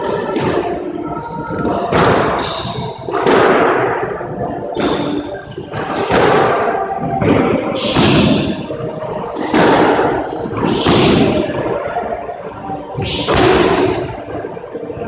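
Kicks and punches smacking into handheld punching mitts, about nine sharp hits a second or two apart, each echoing off the hard walls of a squash court. Short sneaker squeaks on the wooden floor fall between the hits.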